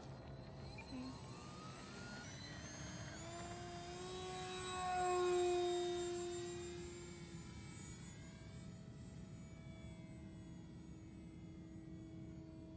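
Electric brushless motor and propeller of a 3D-printed RC plane at takeoff power: a whine that rises in pitch as it accelerates, is loudest as the plane passes about five seconds in, then drops in pitch and fades to a steady, quieter drone as it climbs away.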